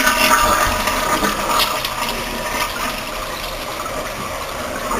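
Toilet flushing: water rushes through the bowl, loud at first and easing off over the last couple of seconds.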